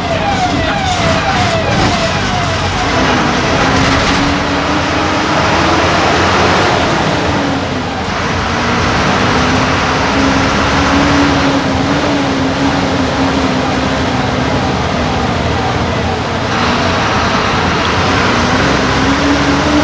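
MSRTC bus diesel engine running, heard inside the cabin, with a steady drone whose pitch rises and falls gently as the bus moves through traffic. A fast, repeating siren-like warble sounds near the start and fades out.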